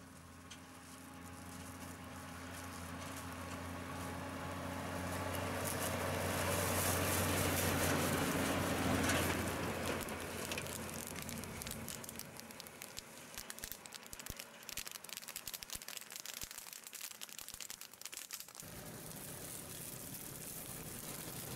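Utility truck fitted with a windrow burner approaching and passing, its engine hum growing to a peak about eight seconds in and then fading. Crackling of burning chaff windrows follows. About eighteen seconds in the sound cuts suddenly to a steady hiss.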